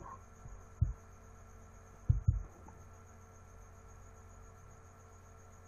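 Steady low electrical hum, broken by dull low thumps: one just under a second in and a quick pair just after two seconds.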